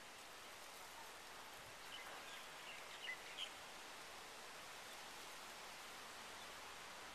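Faint steady hiss of rain falling on the rainforest, with a few short high bird chirps about two to three seconds in.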